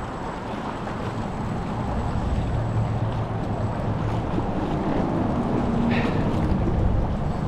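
Wind buffeting the microphone over water splashing around a kayak, with a low rumble that builds gradually.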